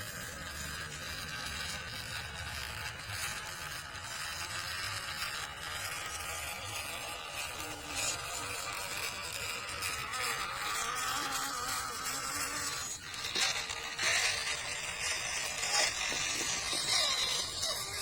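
Yellow MN99 D90 scale RC off-road car's small electric motor and gears whining as it drives, with a few louder knocks and rattles in the last few seconds.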